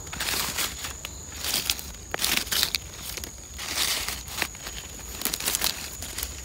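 Dry leaf litter crunching and rustling in irregular bursts, with a few sharp snaps, as someone moves through it and handles the forest floor.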